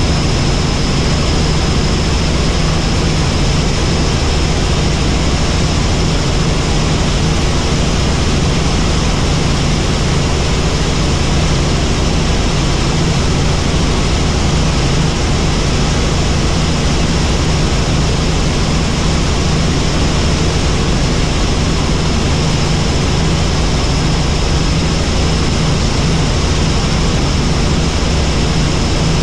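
Helicopter in flight: steady, loud rotor and engine noise, a low drone with a thin high whine above it.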